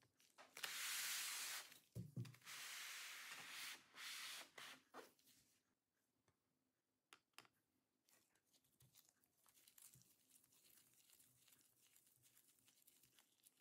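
Faint scraping and rubbing of laptop parts being handled, in a few short bursts, with a soft knock about two seconds in; then near silence with a few faint clicks.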